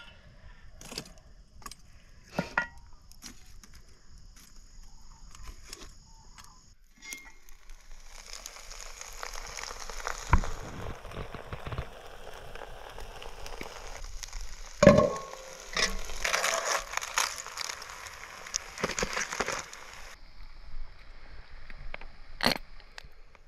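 Cast-iron Dutch oven and its lid clinking against a lid lifter and tongs over a campfire: scattered metal clicks at first, then a long stretch of crackling hiss with two sharp knocks, which stops a few seconds before the end.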